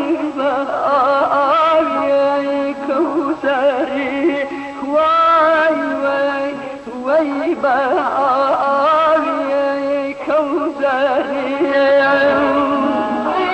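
Middle Eastern-style music with a wavering, heavily ornamented melody line and held notes.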